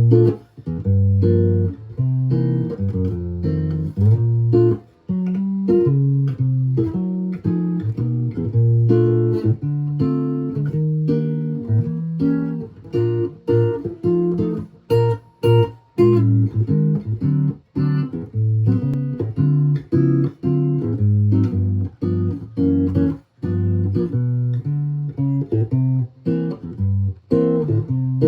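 A 1941 Gibson ES300 archtop guitar, strung with D'Addario half-round 11–49 strings, being played: a tune in chords that change every half second to a second, with a warm, bass-heavy tone.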